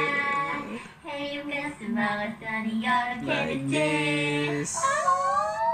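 Two women singing a playful song together, in held notes broken by a short pause about a second in, with a rising, sliding phrase near the end.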